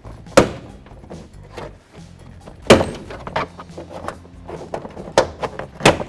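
Plastic retaining clips of a 1996 Dodge Ram door trim panel popping loose as a plastic trim tool pries the panel off the door. Four sharp snaps come about half a second in, near three seconds, and twice near the end, the one near three seconds the loudest.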